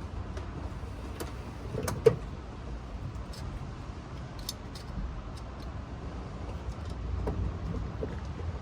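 Scattered metallic clicks and clinks of hand tools working at a fastener on the car, with one sharp knock about two seconds in, over a steady low rumble.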